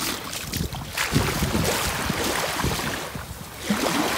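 Small waves washing gently onto a sandy shoreline, with wind gusting on the microphone.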